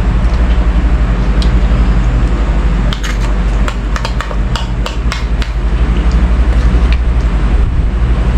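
Boiled goose barnacle (selisip) shells being cracked and pried open by hand: a run of sharp clicks and cracks between about three and five and a half seconds in. A steady low rumble underlies it throughout.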